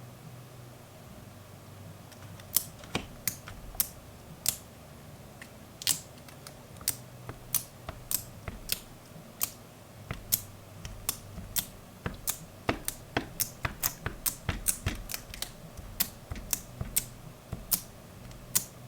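A long irregular run of short, sharp clicks and taps, about two a second, starting about two and a half seconds in. They come from hands working on a phone and its plastic screen-protector installation kit.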